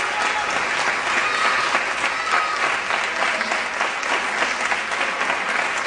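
Audience applauding steadily, a dense crowd of clapping hands.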